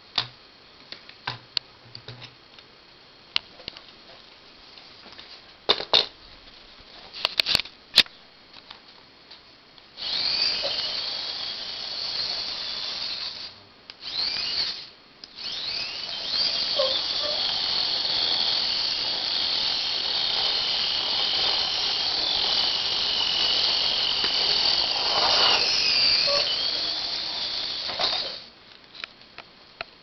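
Small electric gear motors of a homemade wheeled robot whining as it drives, the pitch dipping and rising as its speed changes, with two short stops soon after it starts. Before the motors start there are a few sharp clicks.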